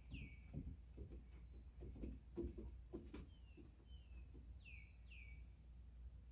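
Faint songbird calls: short whistled notes sliding downward, a pair right at the start and another pair about five seconds in, with softer slurred notes between. A few soft clicks and rustles come in the middle, over a low outdoor rumble.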